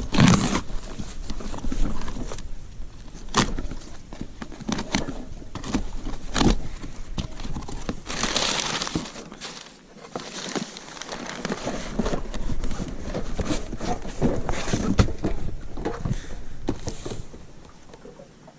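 A cardboard box being opened and unpacked by hand: irregular knocks and scrapes of cardboard, with a longer stretch of tearing and crinkling about eight seconds in.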